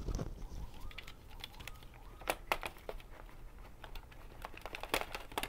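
Hands handling a CD's plastic packaging: scattered light clicks and taps, with a few louder clacks about two seconds in and again near the end.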